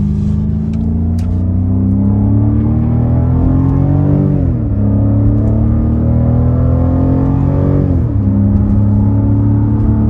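BMW F90 M5's twin-turbo V8 accelerating, heard from inside the cabin. The pitch climbs steadily, drops sharply at an upshift about four seconds in, climbs again, and drops at a second upshift about eight seconds in, then holds nearly steady.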